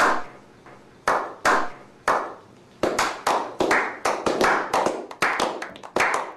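A slow clap: single hand claps about a second apart at first, then quickening from about three seconds in as the group of men joins in.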